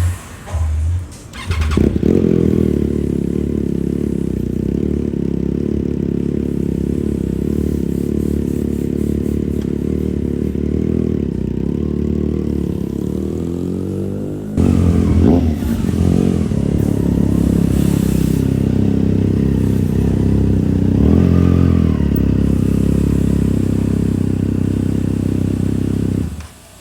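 Triumph Daytona 660's inline three-cylinder engine catching about two seconds in and settling into a steady idle. It is revved briefly a few times in the second half, and the sound cuts off suddenly near the end.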